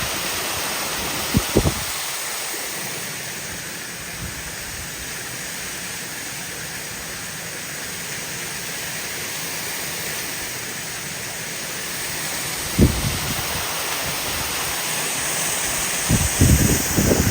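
Steady rushing of a waterfall, an even hiss of falling water, broken by a few short low thumps: two early on, one about thirteen seconds in, and a run of them near the end.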